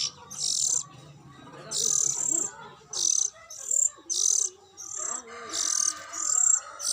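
Lovebirds chirping: short, shrill calls repeated every half second to a second, with softer twittering beneath.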